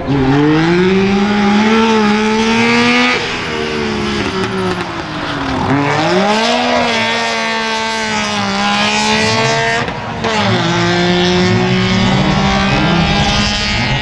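Rally car engines revving hard and pulling through the gears, the pitch climbing and then dropping sharply at each upshift; this happens several times, with a sudden change about ten seconds in as another car's run begins.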